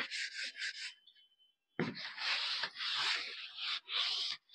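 A board eraser scrubbing chalk writing off a chalkboard. It starts with a knock as it meets the board, then about four quick back-and-forth strokes, a short pause, and longer continuous scrubbing.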